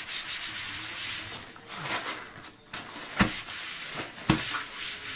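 Wiping by hand: repeated rubbing strokes over a surface, with two sharp knocks a little past three and four seconds in.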